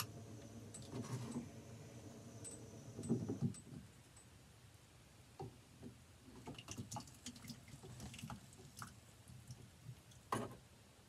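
Food being spooned and poured from a small metal camp pot into plastic cups: soft wet plops, with scattered light scrapes and clinks of the spoon against the pot. A low steady hum stops about a third of the way in.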